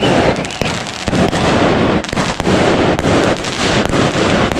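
Fireworks and firecrackers going off in quick succession: many sharp bangs and crackles over a continuous wash of noise.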